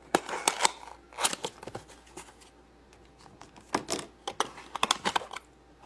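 Small plastic toy pieces being handled and set down, giving light clicks and taps in a few short clusters.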